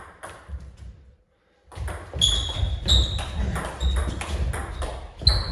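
Table tennis rally: the ball clicking and pinging off bats and table every second or so, over low thumps. The sound drops out to silence briefly a little after a second in.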